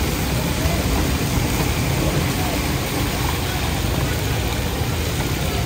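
Fish deep-frying in a large wok of hot oil, a steady sizzle, over a constant low rumble, with background chatter.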